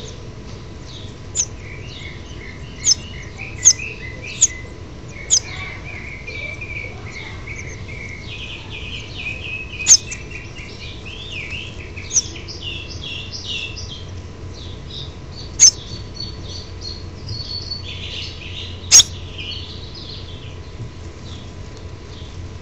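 House finch nestlings chirping in the nest: a busy run of quick chirps and chatter, with about nine loud, sharp clicks scattered through it.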